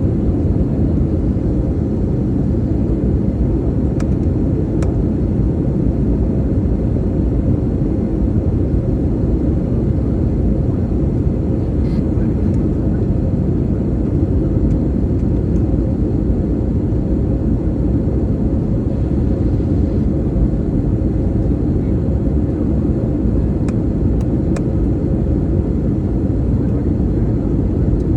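Steady cabin drone of an airliner in descent: a constant roar of engines and airflow, with a faint steady hum running through it.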